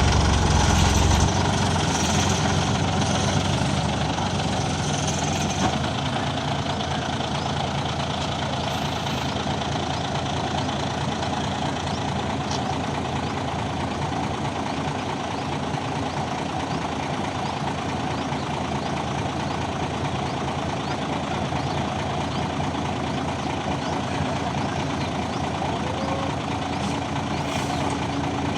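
Concrete mixer truck's diesel engine running steadily, with a heavier low rumble in about the first second. A few short hisses come in the first few seconds.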